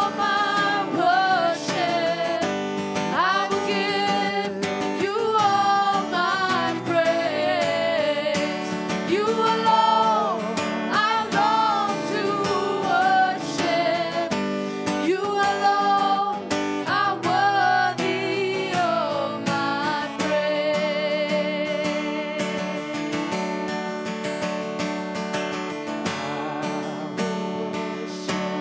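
Live worship song: a woman sings lead with a second female voice backing her, over a strummed acoustic guitar. For the last third the singing grows weaker and the guitar carries on.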